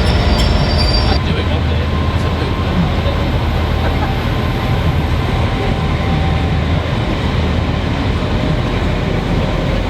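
A train moving on the rails, with a high wheel squeal that stops about a second in, then a steady rumble.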